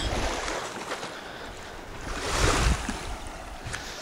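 Wind buffeting the microphone outdoors: an uneven low rumble under a rushing hiss, swelling in a gust about two seconds in.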